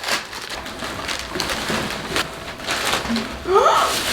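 Wrapping paper crinkling and tearing as presents are unwrapped, in quick irregular rustles, with a short rising voice near the end.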